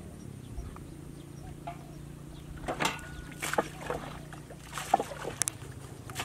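A small boat poled through shallow flood water: a few sharp knocks and splashes of the pole and hull, starting about halfway through, over a low steady hum.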